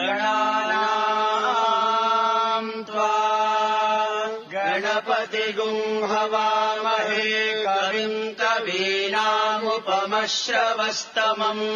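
A voice chanting in long, held notes over a steady low drone, with short breaks about 3 and 4.5 seconds in.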